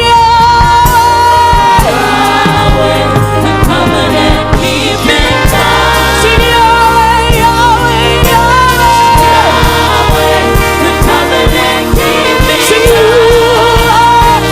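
Gospel worship music: a choir and singers sing over a full band with a steady bass.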